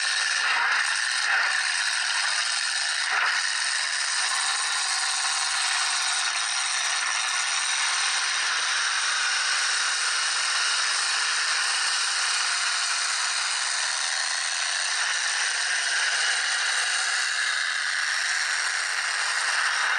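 Demolition derby pickup trucks running hard in the arena: a steady, thin-sounding din of engines and rattling battered metal, with a few sharp knocks in the first few seconds.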